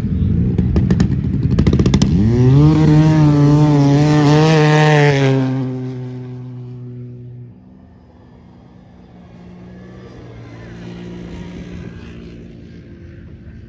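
Snowmobile engine at full throttle accelerating down the ice. A rough engine note rises in pitch about two seconds in, holds a high wavering note, then fades as the sled moves away. A second engine, an ATV, comes up faintly near the end.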